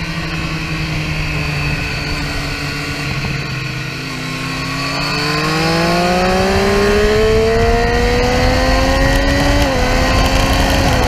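Triumph Street Triple R's three-cylinder engine at speed on track, heard onboard over wind noise. The engine note sags off the throttle through a corner, then rises steadily under acceleration for about five seconds, drops briefly at an upshift near the end and keeps pulling.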